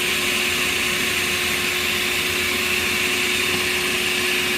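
Electric blender running steadily at an even speed, blending eggs.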